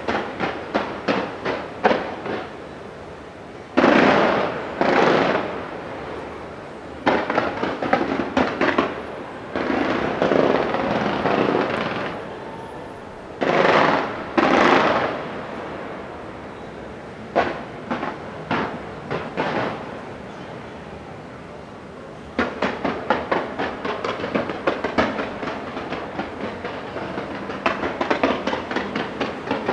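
Fireworks display: rapid runs of sharp bangs and crackling, broken by a few bigger booming bursts. A dense, fast crackle builds in the last seconds.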